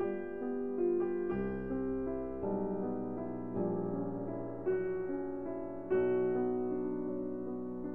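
Background piano music: slow, gentle notes and chords, a new chord struck about every second.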